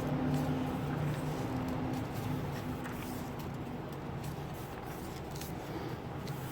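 Thin Bible pages being turned and rustling by hand, with a faint steady low hum that fades out about halfway through.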